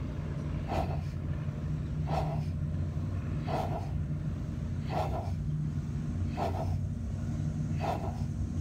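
Forceful breathing through the nose in a yoga breathing exercise, a sharp exhale about every one and a half seconds in a steady rhythm. A steady low rumble runs underneath.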